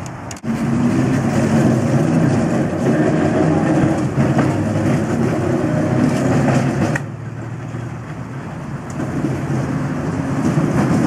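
A 900-series Perley Thomas streetcar on the St. Charles line running along its track, with a steady rumble of its motors and of its wheels on the rails. It drops noticeably in level about seven seconds in, then swells again near the end.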